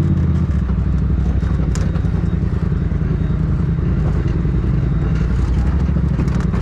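Polaris RZR Turbo side-by-side's engine running steadily under load in a low gear as it crawls up rock, heard from the driver's seat, with scattered clicks and rattles.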